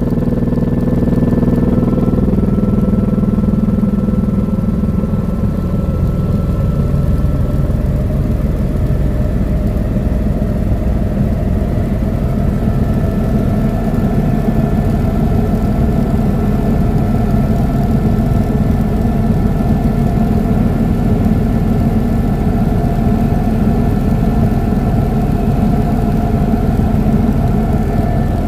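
Helicopter in flight: a loud, steady drone of engine and rotor, with a constant whine over a low rumble.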